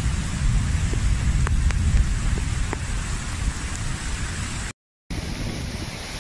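Heavy rain: a steady noisy wash with a deep rumble underneath and a few sharp ticks. It cuts out for a moment about three-quarters of the way through, then a steady rushing noise resumes.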